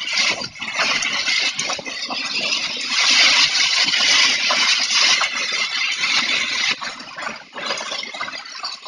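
Heavy wind-driven rain lashing down in strong gusts, with scattered rattles and knocks, swelling loudest about three to five seconds in and easing near the end.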